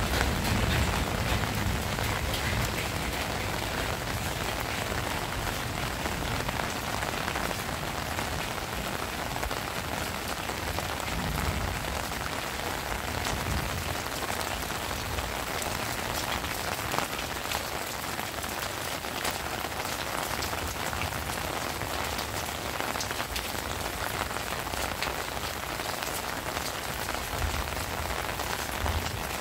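Heavy rain falling steadily, a dense even hiss dotted with many distinct drop hits close by.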